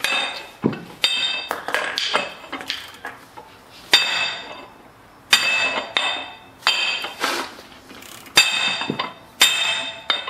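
Hammer blows on the sleeve-pulling tool in a Ferrari 330 Colombo V12's aluminium block, about a dozen sharp strikes spaced irregularly, each leaving a metallic ring. The blows drive the wet cylinder sleeve down into its seat; a real sharp sound is the sign that the sleeve has reached the bottom in the block.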